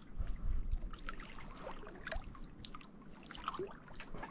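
Lake water lapping against the hull of an inflatable raft, with scattered small splashes and drips.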